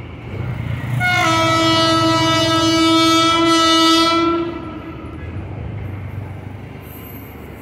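Electric locomotive horn giving one long, steady, loud blast that starts about a second in and fades out after about three and a half seconds, over the low rumble of approaching trains.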